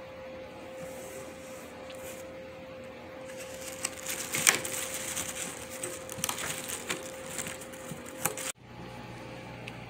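A cat clawing and biting at a torn hole in a cardboard box: a run of dry scratching and crackling of cardboard from about three seconds in, cutting off abruptly near the end. A faint steady hum lies underneath.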